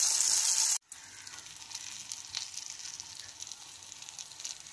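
Pearl spot fish (karimeen) shallow-frying in hot oil with curry leaves, sizzling loudly. The sizzle cuts off abruptly under a second in and comes back quieter, with scattered crackles and pops.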